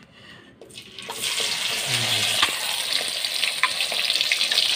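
Hot cooking oil starts sizzling loudly about a second in as ingredients go into the pan, a steady frying hiss with small crackles.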